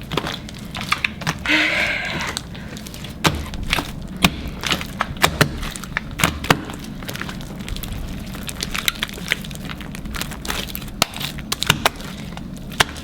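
Homemade glue slime being kneaded and stretched by hand, giving off irregular sharp clicks and pops as it is worked, with a short wet squelch about a second and a half in.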